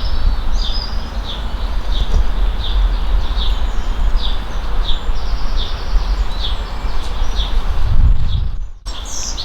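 A bird calling in a steady series of short, high, falling chirps, about two a second, over a loud low rumble. The sound drops out for a moment near the end.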